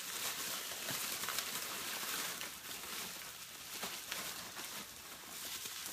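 Rustling and crinkling of packing material as a hand rummages inside a cardboard shipping box, with a few light ticks.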